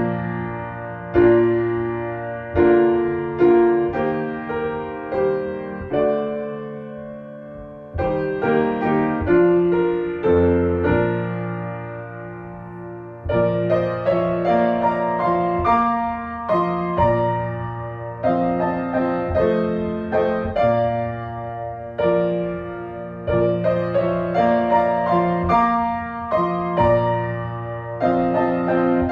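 Solo piano or electric piano playing a slow, gentle piece, with notes struck and left to decay and a brief lull about six seconds in.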